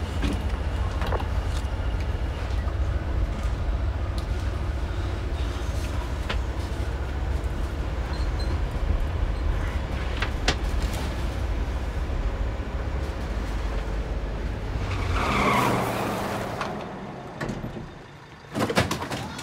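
Ambulance driving, heard from inside the rear compartment: a steady low engine and road rumble with small rattles and knocks. Near the end the rumble gives way to a brief rushing noise and then a single sharp knock.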